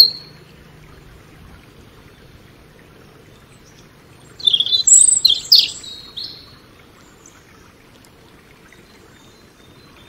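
European robin singing: one short phrase of high, quick, varied notes about four seconds in, lasting about two seconds.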